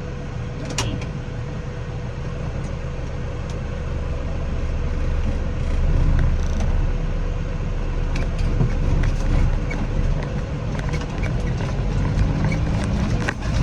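Tractor engine running steadily, its low rumble growing louder about six seconds in, with a faint steady whine over it and scattered light ticks.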